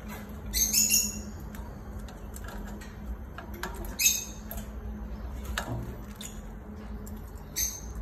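Wet blue lovebird shaking the bathwater from its feathers in three short, high rustling bursts: about half a second in, at about four seconds, and near the end.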